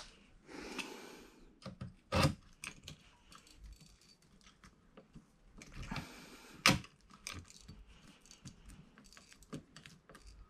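Scattered small metallic clicks and rattles from handling a hand rivet gun and 3/16" stainless steel blind rivets at an aluminum hatch-lid hinge, with two louder clacks, one about two seconds in and one near seven seconds in.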